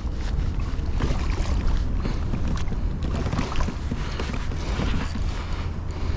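Wind buffeting the microphone in a steady low rumble, with faint scattered ticks and splashes of water.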